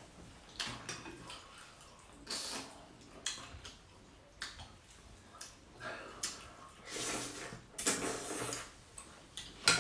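People slurping noodle soup: a string of short, wet slurps and sucking sounds as noodles and broth are drawn in.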